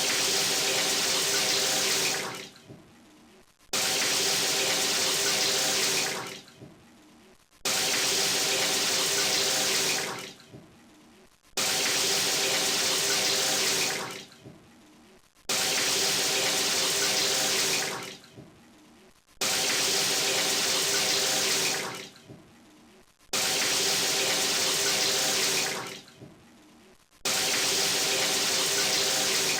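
Shower water spraying in repeated bursts: each runs about two seconds as a steady hiss with a faint ringing hum under it, tails off, and after a short pause starts again suddenly, about every four seconds.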